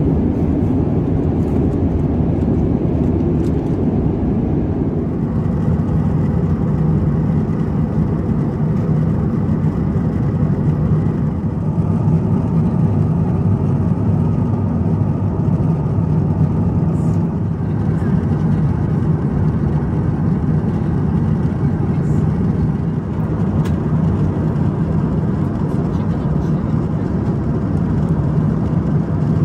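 Steady low drone of engine and airflow noise inside the cabin of an Airbus A350-1000 airliner.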